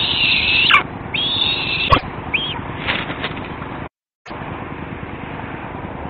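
Eastern imperial eagles calling at the nest: three calls of just under a second each in the first two seconds, then a short fourth call, with a sharp knock at about two seconds. The sound cuts out briefly a little before halfway, then gives way to a steady hiss.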